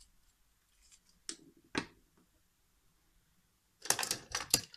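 Small plastic toy figures knocking and clicking against a wooden tabletop as they are handled: two light knocks, then a quick run of sharper clicks near the end.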